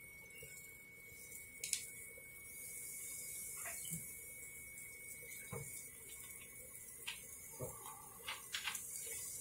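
Pepsi poured from a plastic bottle over raw crabs in an aluminium pot: faint liquid pouring with a soft fizzing hiss, then a few small clicks and knocks.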